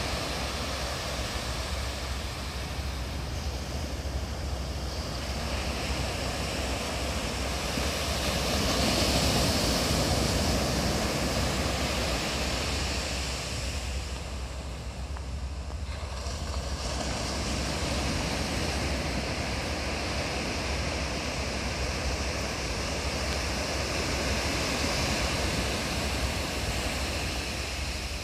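Small shore-break waves breaking and washing up a sandy beach, a steady wash of surf that swells louder twice and eases off in between, with wind rumbling on the microphone underneath.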